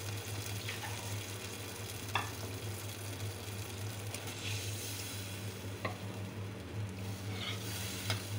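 Onion-tomato masala sizzling in a pot as water is stirred into it with a metal ladle. The ladle clicks against the pot a few times, over a steady low hum.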